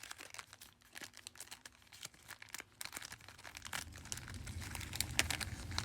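Basketball trading cards being handled and flipped through by hand: faint scattered clicks and rustling of card stock and wrapper, growing busier after about four seconds.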